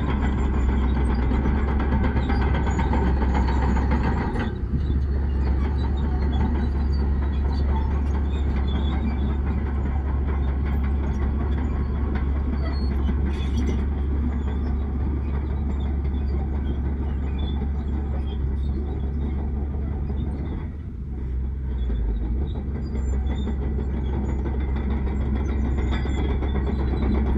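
Heavy diesel earthmoving machinery running under load: a steady, loud low engine drone that dips briefly about four seconds in and again around twenty-one seconds in.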